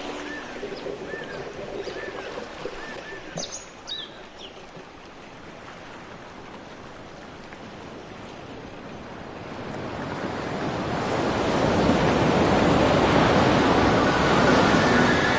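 Ocean-like rushing water noise, quiet at first, swelling up about ten seconds in and holding, after music fades out at the start.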